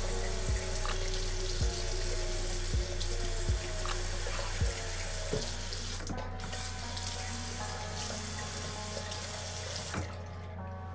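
Bathroom sink tap running steadily into the basin, shut off about ten seconds in.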